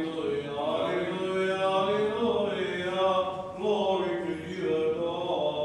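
Male voices chanting Greek Orthodox (Byzantine) funeral hymnody: long held notes that glide slowly from one pitch to the next.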